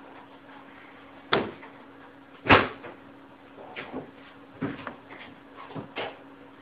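A door being knocked and bumped: two loud knocks, then a run of lighter knocks and clatters, over a faint steady hum.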